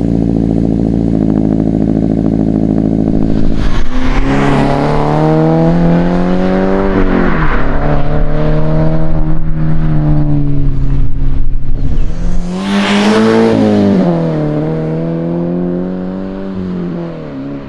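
Toyota 86's FA20 flat-four running through a Remark Bose Edition muffler-delete axleback exhaust. It starts cold and holds a steady high idle. About four seconds in, the car is driving, its revs rising and falling as it accelerates, and it gets quieter near the end.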